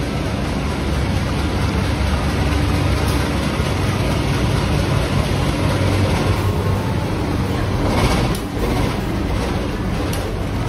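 KAI CC203 diesel-electric locomotive pulling a train in alongside the platform, its engine giving a steady, loud low rumble. A brief louder rush of noise comes about eight seconds in.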